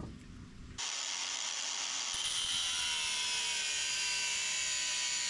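Angle grinder's cut-off disc cutting through a 6 mm stainless steel threaded rod clamped in a vise, starting abruptly about a second in and running steadily, its pitch sinking slowly as the disc bites into the steel.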